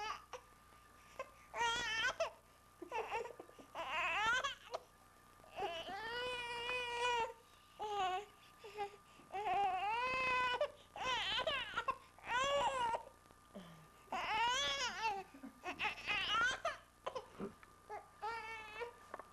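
A baby vocalizing in a run of high-pitched, drawn-out cries and squeals, each rising and falling in pitch, with short pauses between.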